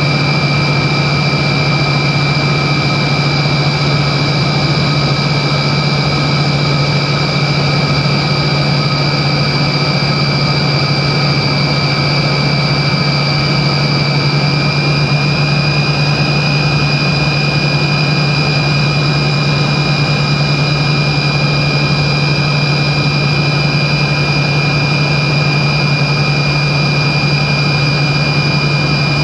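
Steady cabin noise of a Tupolev Tu-134B-3 in flight, from its two rear-mounted Soloviev D-30 turbofans: a deep hum with a high, steady whine over it. The whine rises slightly about halfway through.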